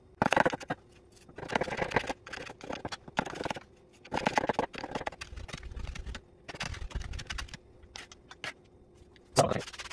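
Chef's knife chopping and mincing garlic cloves on a wooden cutting board: bursts of quick knife taps and scrapes with short pauses between them, the loudest near the end.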